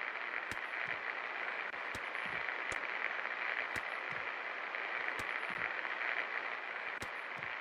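52-inch Superstar Contractor Elite ceiling fan running: a steady whooshing hiss with light clicks at irregular intervals.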